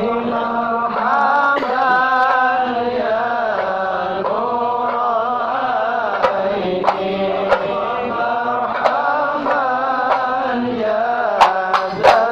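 Men singing an Islamic devotional chant (sholawat) for the Prophet's birthday, the melody moving and bending throughout. A few sharp percussive hits sound partway through, coming more often near the end.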